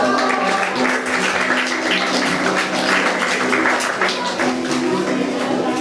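Upbeat scene-change music with a steady bass line of held notes under a busy, bright upper layer.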